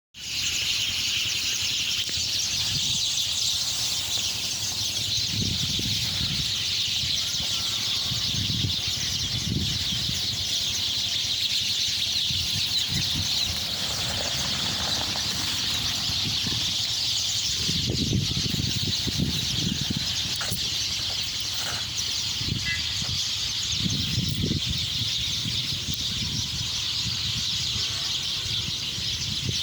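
Dense, continuous chattering of a large flock of small birds calling together at dusk, with intermittent low rumbles underneath.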